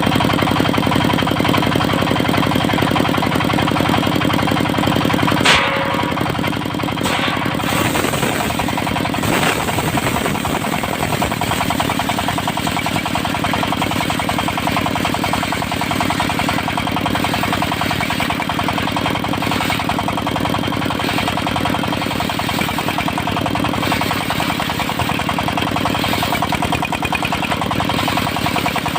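Engine of a mobile circular sawmill running steadily with a fast knocking chug, and a sharp knock about five seconds in.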